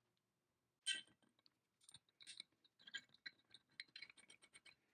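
Small metal parts handled by hand: a sharp metallic clink about a second in, then a run of light ticks and clicks as a screw is worked into a metal vise jaw plate.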